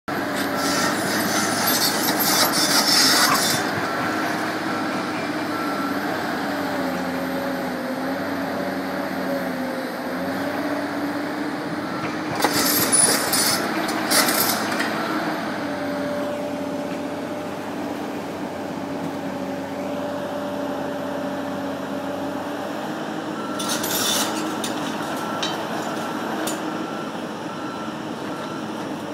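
Komatsu hydraulic excavator running with a demolition pulverizer on its arm. The engine and hydraulics hum steadily, their pitch shifting as the arm works. Concrete cracks and crunches in the jaws three times: near the start, about halfway through, and again near the end.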